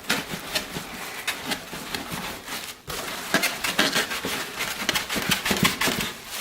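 Styrofoam packing blocks squeaking and scraping against the cardboard box as a boxed belt and disc sander is rocked and pulled out of its packing. The rubbing and creaking come in rapid, irregular strokes and grow busier about halfway through.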